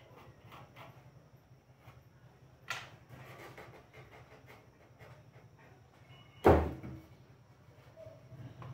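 Wooden bench parts being handled on a workbench: soft taps and a sharp knock about a third of the way in, then one loud wooden knock about two-thirds through. A low steady hum runs underneath.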